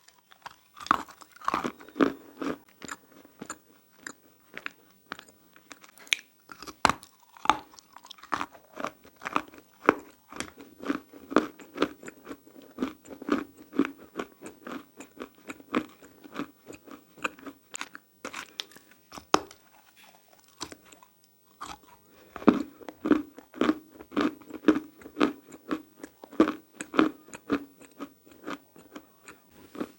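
Biting and chewing of dry, powdery handmade clay chalk: a fast run of crisp crunches, with a short pause about twenty seconds in.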